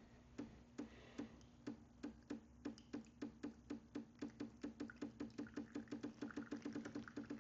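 Decent espresso machine's pump clicking in regular pulses while it pushes water through the puck during the shot. The clicks speed up steadily, from about two a second to about seven a second.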